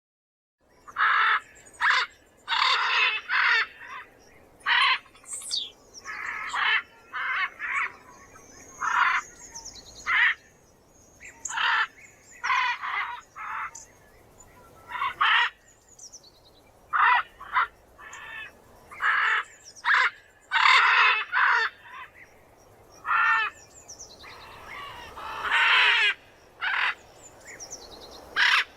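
Macaws squawking: a string of harsh, raspy calls, each under a second long, coming at irregular intervals, with fainter high chirps of other birds between them.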